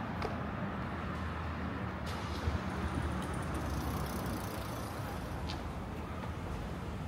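Street traffic: a motor vehicle's engine and tyres running steadily, with a few faint clicks.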